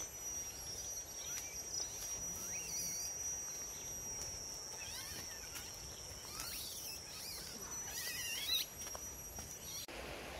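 A steady, high-pitched insect drone with birds chirping over it now and then. The insect tone cuts off suddenly near the end.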